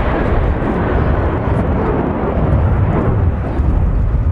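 Jet engine noise from a formation of BAE Hawk T1 jets with Rolls-Royce Adour turbofans flying past: a loud, steady rushing noise over a deep rumble.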